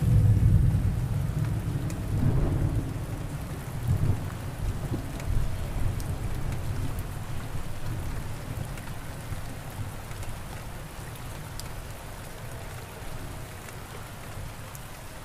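Steady rain with rolling thunder: a loud rumble right at the start, further rumbles about two and four seconds in, then the rain alone, slowly fading out.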